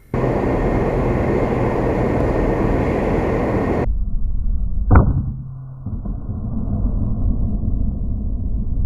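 Strong wind buffeting the microphone, which cuts off abruptly about four seconds in. About a second later comes a single sharp crack, and lower wind noise carries on after it.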